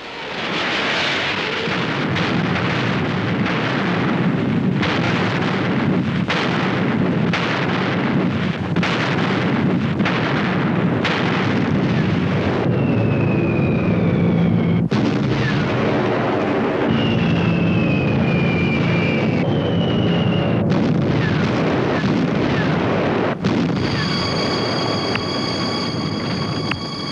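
Artillery barrage: a continuous din of gunfire and shell bursts with heavy blasts every second or two. Three whistles falling in pitch cut through in the middle, and a steady high tone joins near the end.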